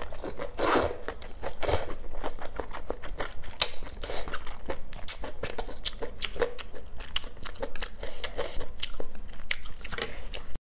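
Noodles slurped up from a bowl of spicy soup, a couple of short hissing slurps in the first two seconds, then close, wet chewing with many quick mouth clicks and smacks.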